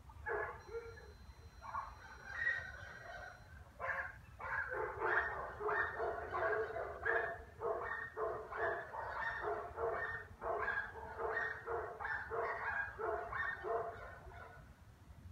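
A dog barking over and over. There are a few scattered barks at first, then steady barking at about two a second, which stops shortly before the end.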